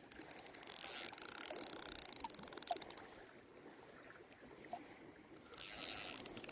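Fishing reel being cranked during a fish fight: a rapid run of fine clicks that stops about halfway through. Near the end a steady high hiss comes in.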